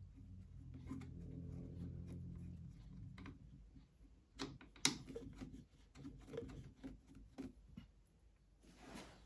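Underside mechanism of a Singer 201k sewing machine, tilted back in its case, being worked by hand: a low hum for the first few seconds, then a series of light metal clicks and knocks, the sharpest about five seconds in.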